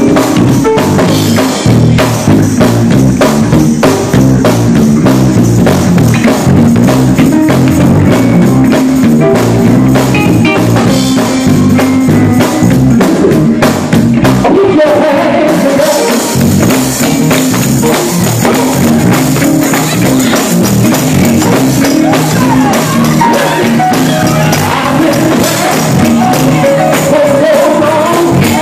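Live gospel music: a male vocal group singing into microphones, backed by a drum kit and electric guitar, loud and continuous.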